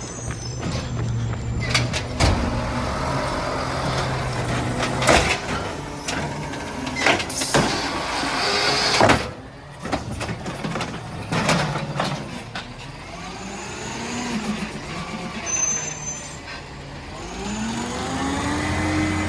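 Garbage truck engine running, with a series of sharp metal knocks and bangs; the loudest comes about nine seconds in. In the second half the engine revs up and down several times, rising and falling in pitch, the biggest rev near the end.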